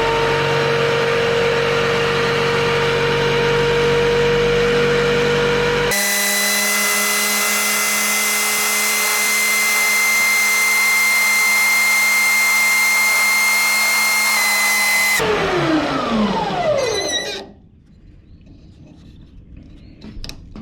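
Electric drill locked on at full speed, its motor running as a steady whine while it spins an antler blank on a dowel against coarse sandpaper. About fifteen seconds in it is switched off and spins down, the whine falling in pitch over a couple of seconds.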